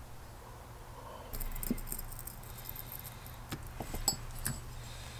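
Soft rustling and a few light metallic clicks as gloved hands handle a disassembled Yamaha XV250 brake caliper and its small steel parts on a cloth shop towel.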